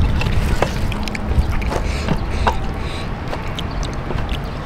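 Uneven low rumble of wind on the microphone, with scattered small clicks and rustles of fingers picking fried chicken and sambal off a paper-lined table and wrapping it in lettuce.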